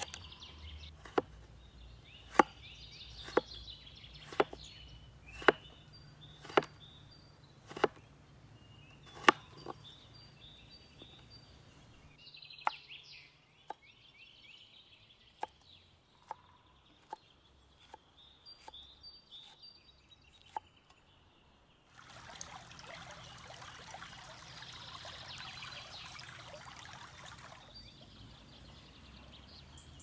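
Cleaver chopping through potato onto a wooden cutting board, one sharp knock about every second, then sparser, softer cuts through pepper. Birds chirp throughout. Near the end a steady hiss lasts several seconds.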